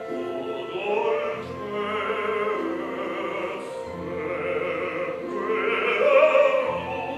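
Male baritone singing an operatic aria in long held phrases over orchestral accompaniment.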